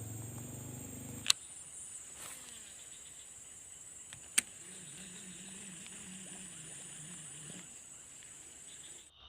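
Steady high-pitched chirring of insects in the evening, with two sharp clicks, about a second in and about three seconds later; the chirring cuts off suddenly near the end.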